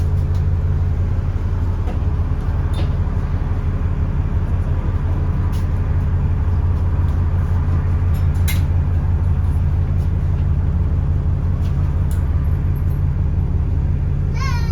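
Alexander Dennis Enviro400 double-decker bus's diesel engine running at a steady low drone, with a few light clicks or rattles scattered through it.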